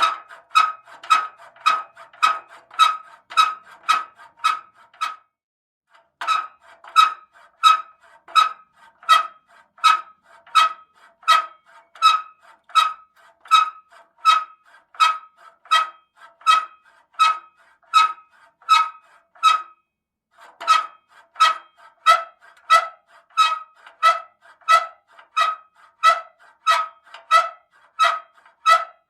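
Bed squeaking over and over in a steady rhythm, about two squeaks a second, each a short pitched creak. The rhythm breaks off briefly twice.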